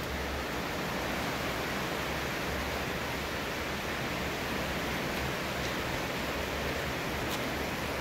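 Steady rain falling, an even wash of sound with no single drops standing out.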